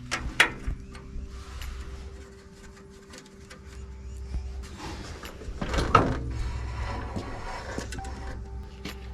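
Scattered clicks and knocks of hands and tools working on a small four-stroke tiller engine at the start of an oil change, with a louder clatter about six seconds in.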